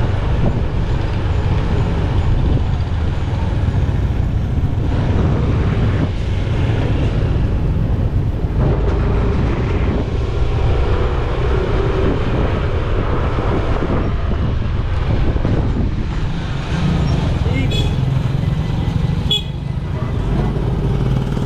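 Vehicle engine and road traffic noise, a steady heavy low rumble throughout.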